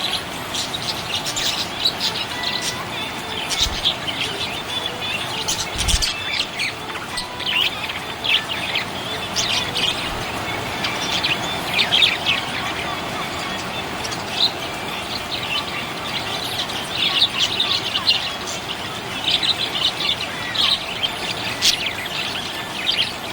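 Small pet parrots chirping continuously, many short high chirps and twitters overlapping, with a couple of brief low knocks.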